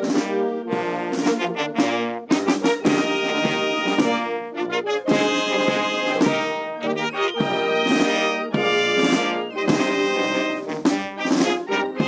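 Military brass band playing a national anthem: sustained brass chords with drum strokes.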